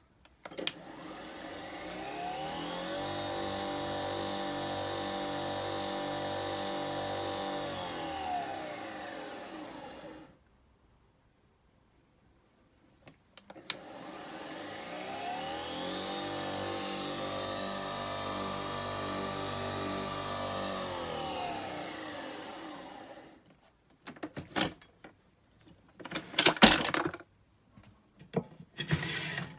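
Nespresso Vertuo Next's capsule-spinning motor running twice, each time about ten seconds long: it whines up in pitch, holds steady, then winds down, with a short silent pause between the two runs. Several sharp clicks and knocks follow near the end.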